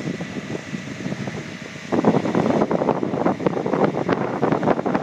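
Wind buffeting the microphone on a sailboat's open deck: a rough, gusty rumble that grows stronger about two seconds in.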